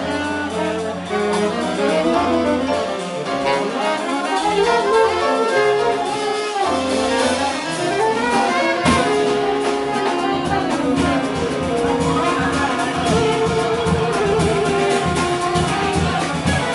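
A six-piece jazz band playing live. Saxophones and trombone play together over piano, double bass and drums, with held notes and moving lines.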